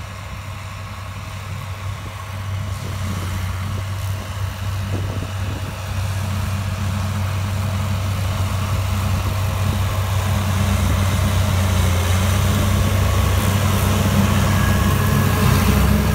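A 140 hp tractor engine pulling steadily at about 1400 rpm, driving a Major Cyclone rear-mounted rotary (sickle) mulcher through a 1000 rpm PTO as it cuts rushes and grass. There is a steady low engine hum with a rougher cutting noise over it, growing steadily louder.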